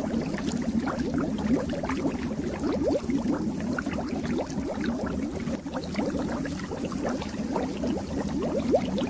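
Fish tank water bubbling steadily, with a dense stream of small bubbles gurgling and popping.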